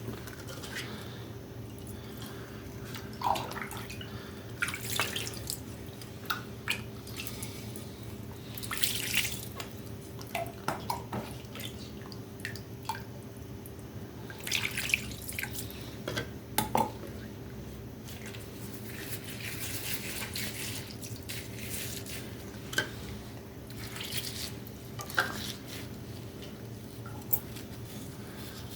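Water dripping and splashing in irregular short bursts, with a few single drops, over a faint steady hum.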